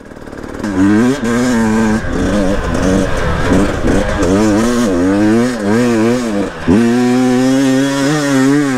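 Enduro dirt bike engine revving up and down repeatedly with the throttle, its pitch rising and falling many times. Near the end it holds a steady, higher pitch.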